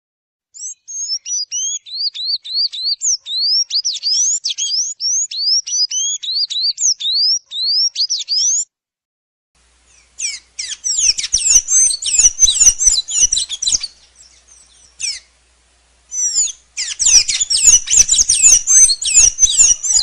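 Sanhaço tanager singing. First comes a string of quick, high, upward-sweeping notes for about eight seconds. After a short break it gives two denser bursts of twittering song, the later ones with a crackle beneath.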